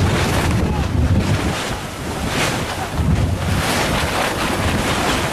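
Wind buffeting the camera microphone in a snowstorm, a loud low rumble that swells and eases in gusts.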